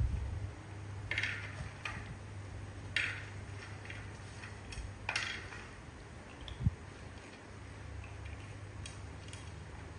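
Small snack pieces and monkeys' fingers tapping and scraping on a ceramic plate: about six short separate clicks, the three strongest a little after one second, at three seconds and at five seconds, over a steady low hum.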